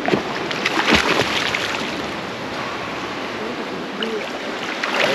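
A splash about a second in as a snorkeler slips off the side of a dinghy into the sea, then water sloshing and lapping against the boat.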